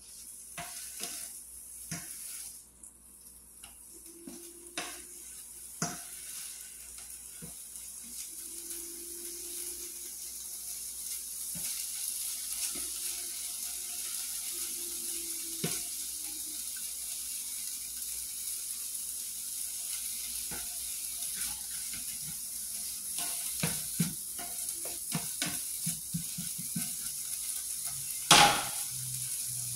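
Pieces of chicken sizzling in a frying pan, the sizzle growing steadily stronger, with the scattered clicks and scrapes of a plastic spatula stirring them. Near the end there is one louder knock.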